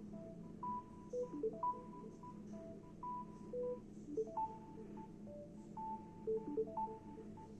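Samsung Galaxy S20+ ringtone playing: a short electronic melody of separate notes, the phrase repeating every few seconds.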